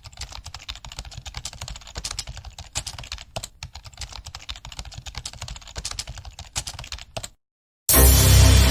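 Rapid, irregular computer-keyboard typing clicks, a typing sound effect, that stop about seven seconds in. After a short silence, loud background music starts near the end.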